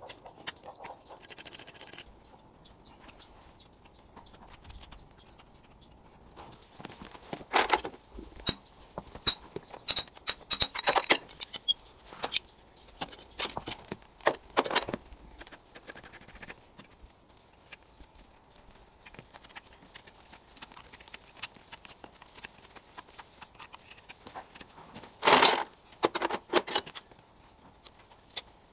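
Farrier's hoof knife scraping and paring infected horn from a horse's hoof, with scattered metal clicks and scrapes in irregular bursts. One louder scrape lasting about a second comes near the end.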